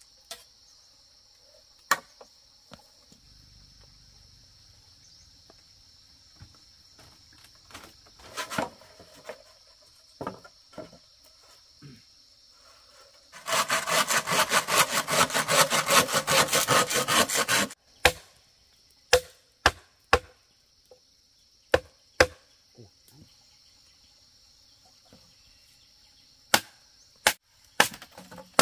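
Hand-tool work: scattered sharp knocks, and a loud run of rapid scraping strokes lasting about four seconds past the middle. A steady, high insect drone runs underneath.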